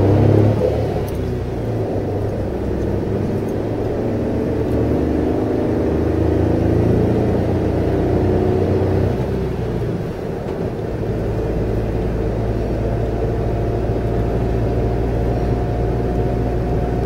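Suzuki Jimny JB64's small turbocharged three-cylinder engine running steadily while driving, heard from inside the cabin together with steady tyre and road noise.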